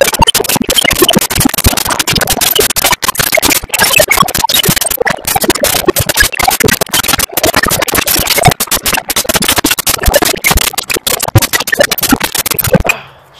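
Loud, harsh crackling noise with many brief dropouts, overwhelming the microphone; it cuts off suddenly near the end.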